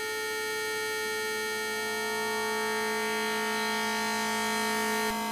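Prophet-5 Rev 2 analog synthesizer holding a single sustained note: oscillator 1's pulse wave with its pulse width modulated at audio rate. The tone is steady in pitch while its overtones fill in and shift gradually, with a small change about five seconds in.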